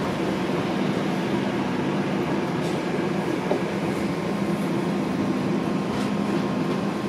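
Steady hum and rumble inside a TTC Flexity streetcar riding along, with a few faint ticks.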